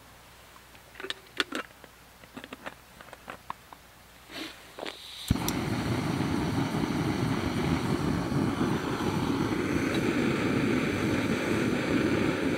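Light clicks and clinks of cookware being handled, then about five seconds in a sharp click as a backpacking gas canister stove lights. The burner then runs with a steady rushing hiss.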